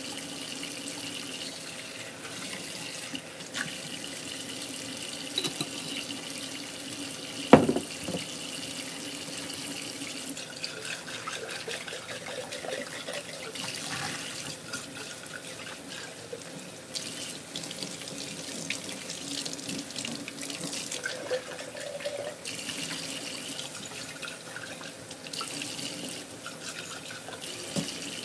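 Kitchen tap running steadily into a sink while an empty glass pasta-sauce jar and its metal lid are rinsed under it. A single sharp knock about a quarter of the way through is the loudest sound, with small clinks and clatters of the jar and lid now and then.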